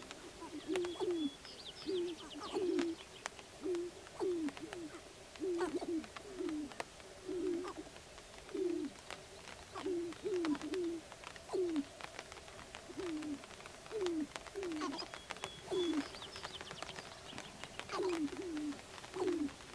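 Male sharp-tailed grouse cooing in courtship display, the inflated purple neck sacs sounding short, low, falling coos about once or twice a second. Scattered sharp clicks sound above the coos.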